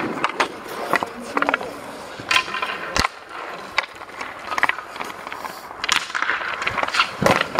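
Hockey sticks striking pucks and skate blades scraping the ice in a string of sharp knocks, with one loud crack of a shot about three seconds in.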